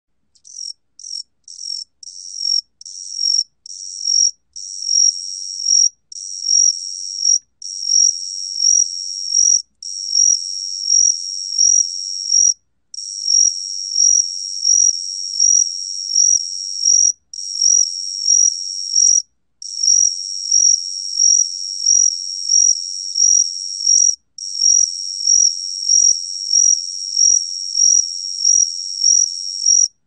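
Gaksi cricket (각시귀뚜라미) singing, recorded at 28 °C: a high-pitched trill in long phrases broken by brief gaps, with louder pulses about one and a half times a second. It starts in short, choppy bursts for the first few seconds.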